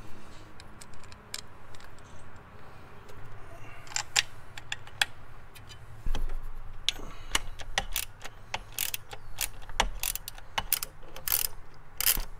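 Light clicks of metal parts being handled, then a hand socket ratchet clicking in short quick runs through the second half as the bolts holding the turbo bypass valve to the intercooler are tightened.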